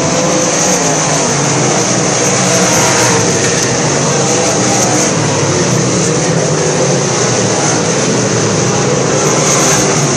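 Southern sport modified dirt-track race cars' V8 engines running hard around the oval in a continuous, loud engine din. It grows a little louder near the end as two cars pass close by.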